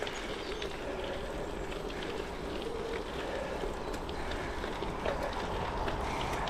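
Gravel bike riding along: Goodyear Connector gravel tyres rolling, with steady tyre and wind noise on the camera microphone and scattered small clicks and ticks.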